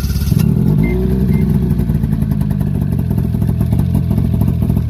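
Snowmobile engine running loud and steady, its pitch rising slightly in the first second before holding even.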